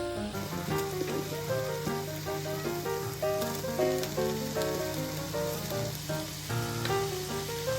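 Background music, a light melody of short, evenly paced notes, over a steady hiss.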